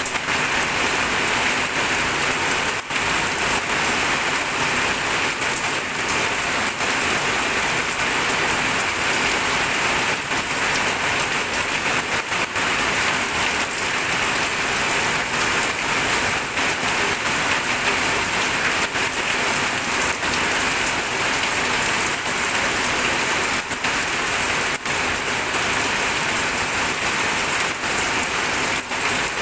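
Steady rain falling on a surface, an even dense hiss with no break.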